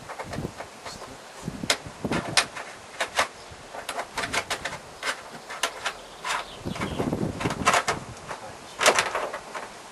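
A metal nut plate on a stiff wire being worked through a hole into a van's body panel: irregular metallic clicks, scrapes and knocks, with a few duller thumps.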